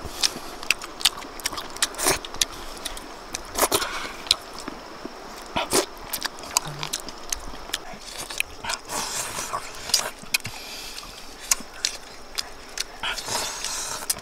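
Close-up eating sounds of people eating boiled fish with chopsticks: irregular sharp lip smacks and chewing clicks, with a few short sucking or slurping noises.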